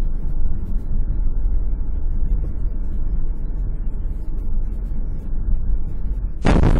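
Low rumble of a moving car's cabin as picked up by a dashcam, then near the end a sudden loud impact as the Subaru is T-boned in a collision.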